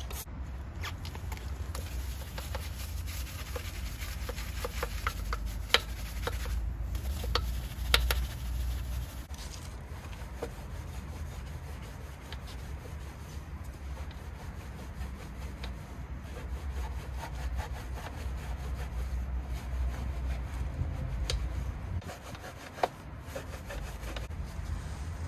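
Rubbing and scrubbing against a surface over a steady low rumble, with a few sharp clicks.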